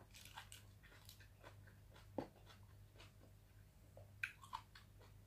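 Faint chewing of catfish flesh: small wet mouth clicks and smacks, with one sharper click about two seconds in and a short run of clicks near the end.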